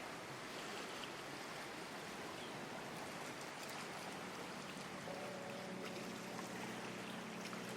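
Calm sea water washing and lapping along a harbour pier: a soft, steady wash. Faint steady tones come in about five seconds in.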